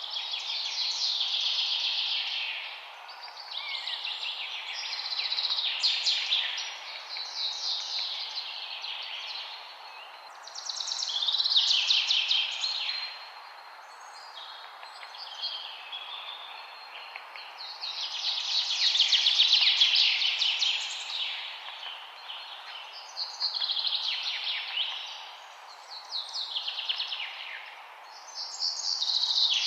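Songbirds singing in a forest: repeated fast trilled phrases of a couple of seconds each, every few seconds, many dropping in pitch at the end, over a steady background hiss.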